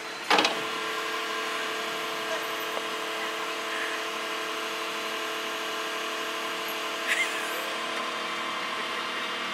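Caterpillar mini excavator running, a steady mechanical hum with a whine, as a child works its joystick controls. A brief clunk comes just after it starts.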